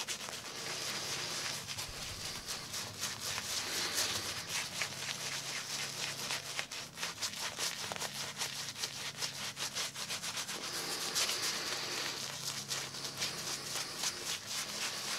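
Shaving brush bristles swirling through soap to build lather: a steady, rapid rubbing and swishing.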